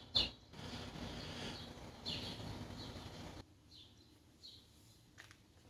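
Birds chirping, short high calls repeating every second or so. Under the first part runs a steady hiss of background noise that cuts off suddenly about three and a half seconds in.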